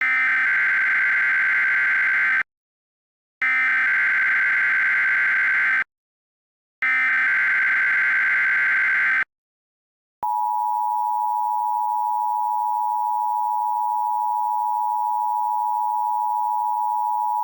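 Emergency Alert System header: three bursts of SAME digital data, each about two and a half seconds long with a second's gap between, then about ten seconds in the steady two-tone EAS attention signal (853 and 960 Hz sounding together).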